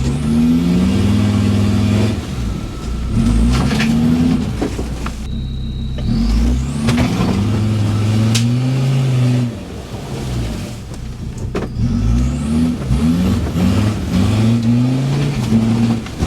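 A 4x4's engine revving hard under load off-road, its pitch climbing and dropping back several times as it is driven up through the gears.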